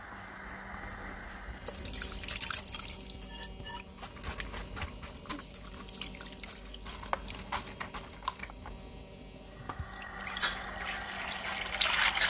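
Water poured from a tap onto tamarind pulp in a mesh strainer: a loud splash about two seconds in, then uneven splashing and dripping. A steady bubbling hiss of the simmering chutney is heard at the start and again near the end.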